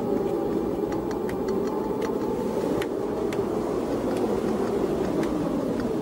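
A steady low droning ambience with faint scattered clicks, with no clear beat or melody.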